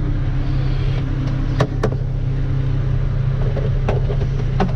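Tractor engine running steadily, heard from inside the cab, with a few sharp clicks: a pair about a second and a half in and another pair near the end.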